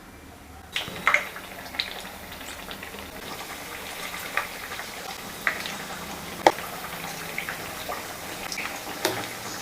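Hot oil in a kadai sizzling as batter-coated raw banana slices go in to deep-fry for bajji. The sizzle begins suddenly just under a second in and goes on as a steady hiss with irregular sharp pops and crackles.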